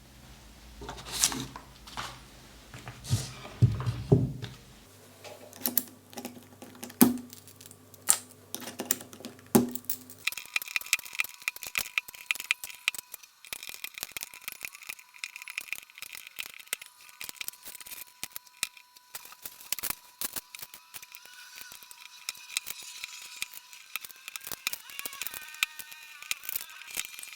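Akko MU01 mechanical keyboard with Creamy Purple U1 tactile switches being typed on: a few separate keystrokes at first, then steady fast typing from about ten seconds in.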